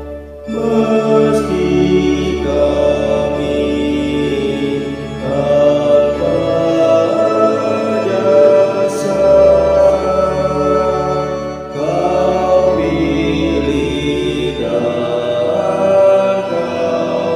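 Mixed four-part (SATB) choir singing an Indonesian hymn in long, sustained phrases, with short breaks between phrases just after the start and about five, twelve and fifteen seconds in.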